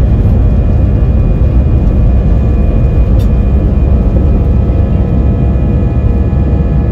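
Jet airliner cabin noise: the engines running loud and steady, a deep even roar with a few steady whining tones over it.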